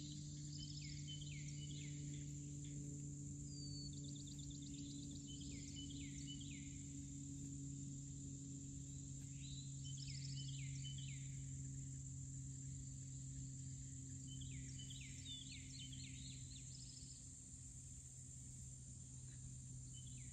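Forest ambience: a songbird repeats a short song of several quick downslurred notes about every four to five seconds, over a steady high-pitched insect drone. A low steady hum runs underneath throughout.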